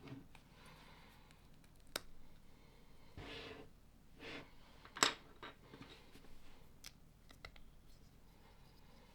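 Plastic LEGO pieces being handled and pressed together: a few sharp clicks, the loudest about five seconds in, with short soft rustles between.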